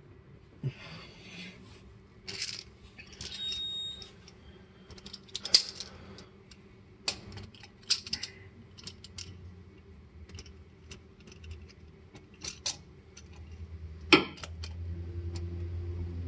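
Metal hand tools clinking and clicking: a cap-style oil filter wrench, socket extension and ratchet being fitted onto a newly hand-tightened spin-on oil filter, ready to snug it past hand-tight. A sharper clank comes about fourteen seconds in, and a faint low hum starts shortly before it.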